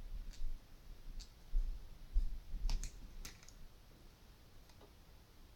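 Handling of a GoPro HERO5 action camera and its battery: several small sharp plastic clicks in the first half, with low dull handling bumps, then quieter.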